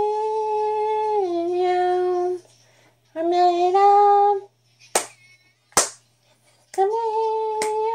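A woman singing in 'meow' syllables in place of a song's lyrics, holding three long notes with short breaks between them. A few sharp clicks fall in the gaps, two about five and six seconds in and one near the end.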